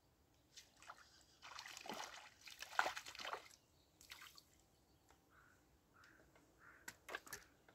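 Water splashing and sloshing in bursts as a small hooked roach is brought in at the surface, the heaviest splashing in the first half and a few short sharp splashes near the end.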